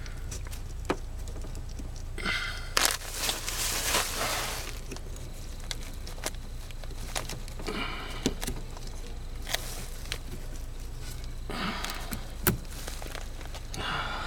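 Work noises in a cramped crawlspace: scattered clicks and knocks, with a longer rustling scrape a few seconds in and a few short squeaks. A steady low hum runs underneath.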